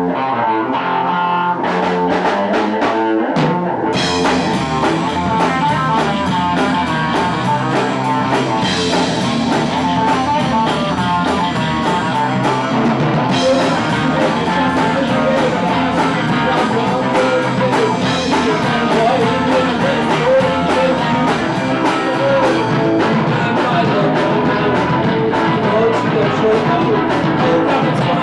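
Live rock band: a guitar plays a sparse intro, then the drums and bass come in about four seconds in and the full band plays on loud.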